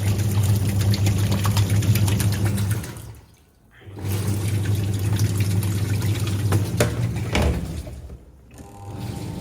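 Semi-automatic washing machine running with water in the tub: a steady motor hum under sloshing water. The sound cuts out briefly twice.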